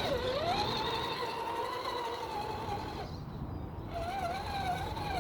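RC crawler's electric motor and gear drivetrain whining as it climbs an obstacle, the pitch rising and falling with the throttle. It eases off briefly about three seconds in, then picks up again.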